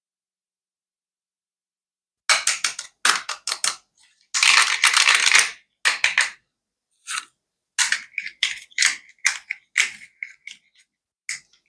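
Toy clicking: after about two seconds of silence, a run of sharp clicks and taps begins, with a quick flurry of clicks lasting about a second midway, then scattered single clicks.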